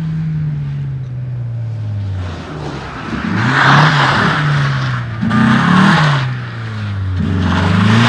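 Rally car engine running at a steady note that slowly sinks. From about three seconds in, a Ford Sierra rally car is driven hard through a wet bend: its engine note swoops up and down twice with a rush of spray and tyre noise.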